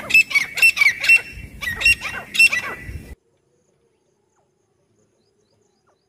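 Grey francolin calling: two runs of loud, rapidly repeated shrill notes, each about a second long, the sound cutting off suddenly about three seconds in.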